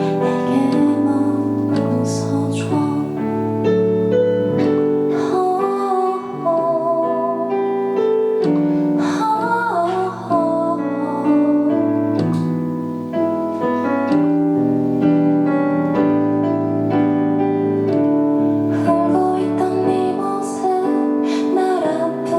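Live band music led by keyboard chords, with a female voice singing in places.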